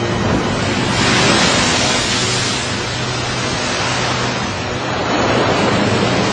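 Heavy rushing splash and spray of a great white shark breaching and falling back into the sea, a long drawn-out surge of water that swells about a second in, eases, then builds again near the end.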